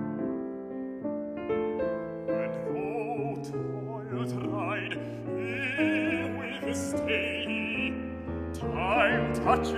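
Grand piano playing alone, then a baritone voice comes in about two and a half seconds in, singing with vibrato over the piano accompaniment in classical style.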